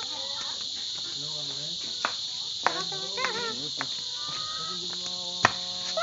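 Steady high-pitched chorus of insects, with a few sharp clicks, the loudest one near the end.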